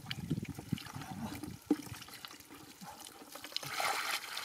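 Wet mud squelching and water trickling as hands dig through watery mud. Near the end comes a louder sloshing wash as a woven bamboo basket is pushed and scooped through the mud.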